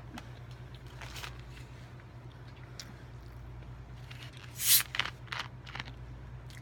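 Close-up eating sounds of McDonald's food: a few short crunches and crackles, the loudest about four and a half seconds in, over a steady low hum.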